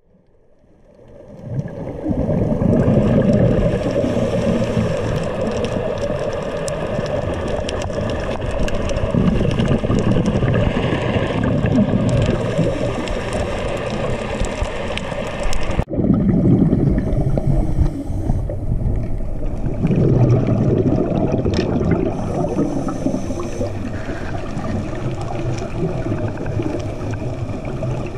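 Muffled underwater sound picked up by the diver's camera: scuba bubbles gurgling in surges every few seconds over a steady low rumble. It fades in over the first two seconds and breaks off sharply about 16 seconds in before carrying on.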